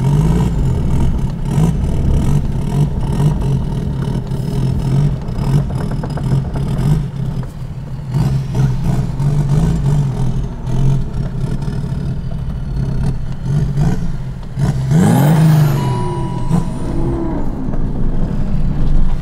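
BMW E39 530d's straight-six diesel engine running as the car drives slowly on its new 22-inch wheels, revving up briefly about fifteen seconds in.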